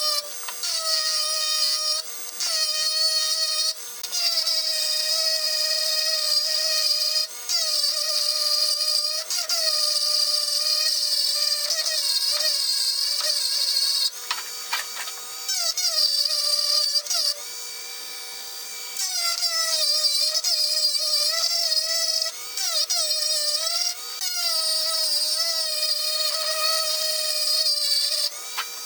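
Dremel rotary tool with a small rotary burr grinding a groove into a cast iron exhaust manifold along a crack. It makes a high whine whose pitch wavers and dips as the burr bites, and it stops briefly several times.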